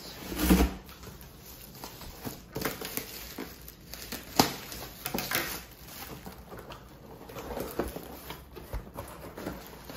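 Bubble wrap crinkling and rustling as it is cut with scissors and pulled off, and a cardboard box being handled, an unboxing by hand. A dull thump about half a second in and a sharp click about four and a half seconds in stand out from the irregular crackling.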